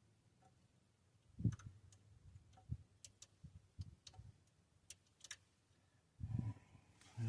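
A few scattered light clicks and taps of hand tools being handled, with a duller low thump near the end.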